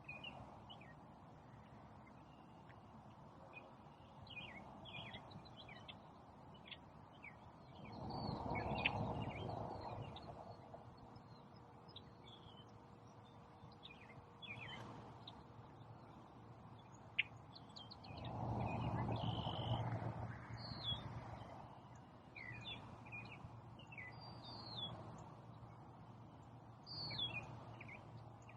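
Several songbirds chirping and calling in spring woodland, with short rising and falling whistles throughout. Two swells of rushing noise, each lasting a couple of seconds, come about 8 and 18 seconds in.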